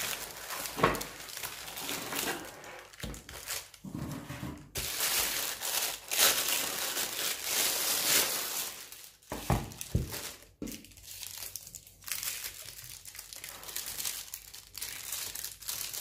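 Plastic packaging wrap crinkling and rustling as the desk lamp is pulled out of its cardboard box and unwrapped, with a few knocks about ten seconds in.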